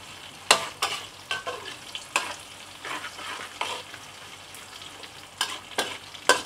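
Metal spatula scraping and clanking against a wok at irregular intervals, stirring shallots, garlic, ginger and curry leaves as they fry in oil, over a light sizzle.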